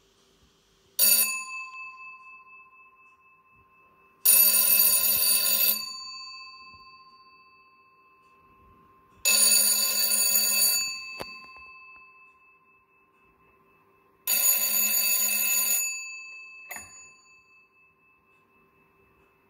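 Bell of a 1950 C.T. Luxe white bakelite telephone ringing: a short first burst, then three rings of about a second and a half each, some five seconds apart, each dying away, and a last very brief ring.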